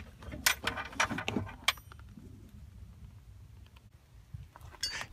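Tool bag holding steel jack handle and extensions being handled, its metal tools giving a few light clinks and knocks in the first two seconds and again briefly near the end.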